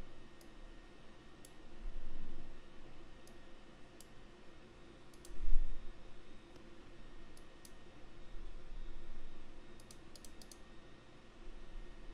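Computer mouse clicking: single clicks spaced out, then a quick run of about five clicks near the end. A few dull low bumps are heard, the loudest about halfway through.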